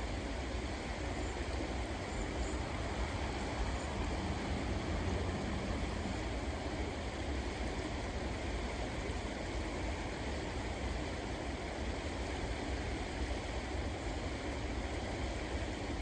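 River water rushing steadily, a constant even noise with a deep rumble beneath it.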